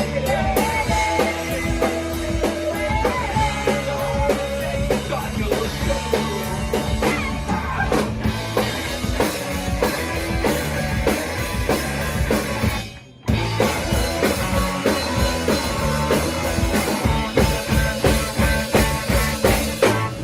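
Rock band playing live: electric guitars, bass and drum kit at full volume. The band stops dead for a moment about two-thirds of the way through, then crashes back in.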